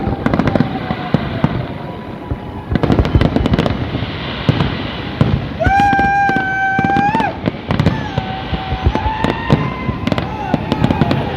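New Year fireworks display: a dense run of bangs and crackles from bursting shells. In the middle a single pitched tone is held for about a second and a half over the bangs.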